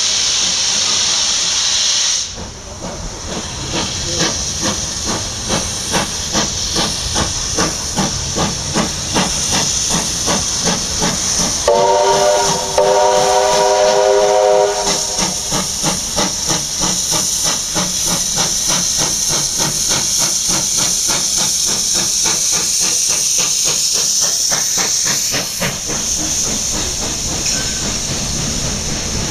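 Steam locomotive 3801, a NSW C38 class Pacific, pulling away under load: a steady hiss of steam, with exhaust chuffs that quicken as the train gathers speed. About twelve seconds in, the steam whistle sounds for about three seconds with a short break.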